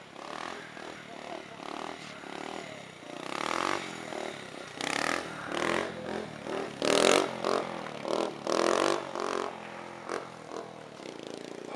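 Yamaha pit bike engine revving in repeated bursts as the bike is ridden, the throttle opened and closed again and again; the loudest bursts come a little past the middle.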